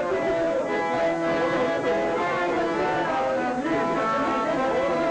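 Music led by plucked string instruments, guitar-like, playing steady sustained notes.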